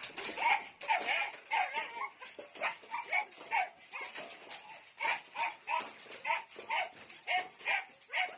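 A dog barking repeatedly, about two short barks a second, with a brief lull about halfway through.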